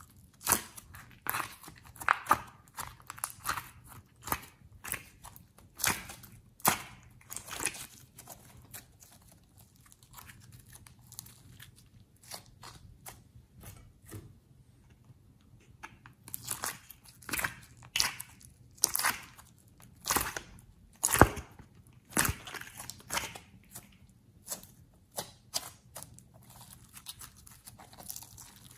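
Glossy slime being squeezed, pressed and folded by hand, giving irregular sticky clicks and crackles, busiest in the first few seconds and again past the middle.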